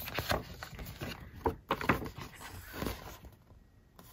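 A folded paper album poster being unfolded and handled. It rustles and crinkles with several sharp paper snaps in the first three seconds, then goes quieter.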